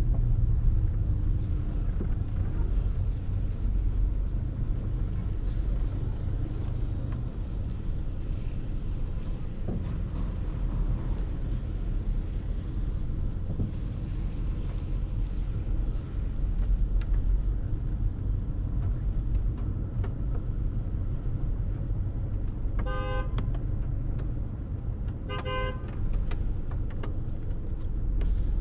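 Steady low rumble of city street traffic, with two short car-horn toots near the end, a couple of seconds apart.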